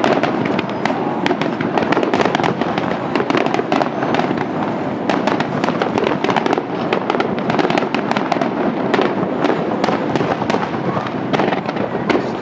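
Rapid barrage of aerial fireworks heard from close to the launch site: many bursts and crackles overlapping in a continuous run of bangs over a steady rumble.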